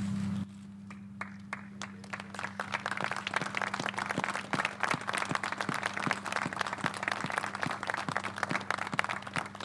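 Crowd applauding: a few scattered claps that build within a couple of seconds into steady, dense clapping, over a steady low hum.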